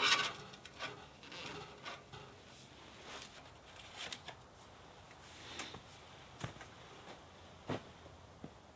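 Scattered light knocks, clicks and rustling of objects being handled in a small enclosed space, loudest just at the start, then a few isolated sharp ticks.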